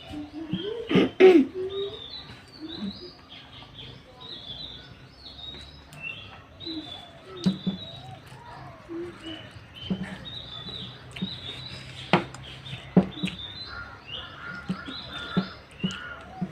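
Small birds chirping over and over in short high calls, with scattered sharp clicks and knocks of dishes being handled while eating.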